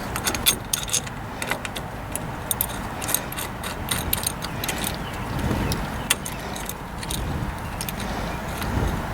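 Small metal parts of a homemade steering wheel puller (a metal plate, bolts and washers) clinking and rattling as they are handled and fitted. The clicks are thick in the first few seconds, then thin out.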